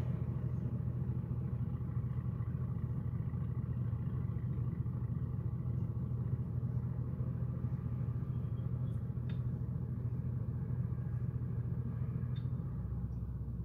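Steady low engine rumble that eases slightly near the end, with a few faint clicks over it.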